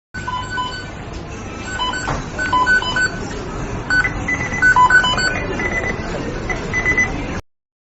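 McDonald's kitchen beeping: many short electronic beeps at several different pitches, overlapping and repeating, over a steady kitchen background hum. It starts and cuts off suddenly.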